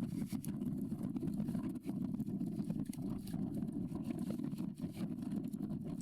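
Wind buffeting the microphone: a steady, rough low rumble with faint crackles.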